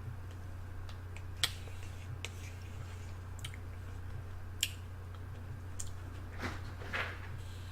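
Eating sounds: about five small, sharp clicks spread out, then two brief wet mouth smacks near the end, over a steady low hum.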